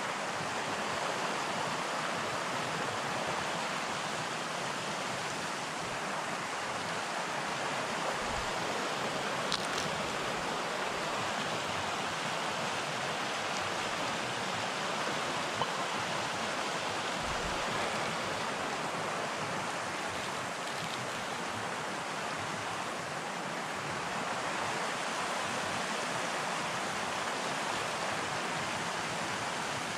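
A small mountain stream rushing steadily over rocks, a constant even wash of water noise. Twice, about a third and about half way through, a faint short click sounds over it.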